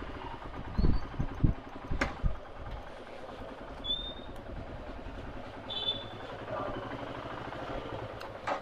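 Steady roadside traffic and vehicle noise, with a few low thumps in the first two seconds, a sharp click about two seconds in, and brief high chirps around four and six seconds.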